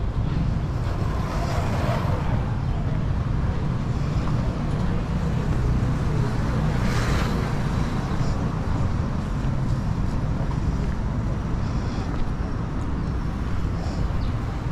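Street traffic ambience: a steady low rumble, with noise swelling briefly about two seconds in and again around seven seconds, as of vehicles passing.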